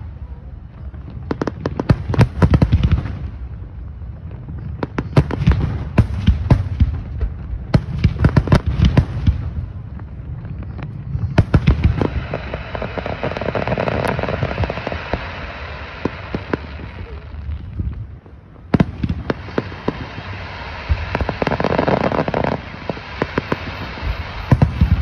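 Aerial fireworks display: clusters of sharp booms and rapid crackling, several shells going off in quick succession. In the second half the bangs come between two long stretches of steady noise.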